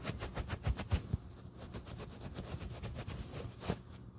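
Terry towel rubbed in quick short strokes over a leather loafer and its metal horsebit, a rapid brushing of about eight strokes a second that stops shortly before the end.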